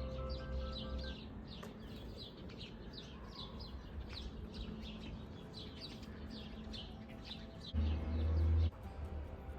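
Small birds chirping throughout, a steady run of quick falling chirps. Soft background music under it drops out about a second in, and a brief loud low tone comes about eight seconds in.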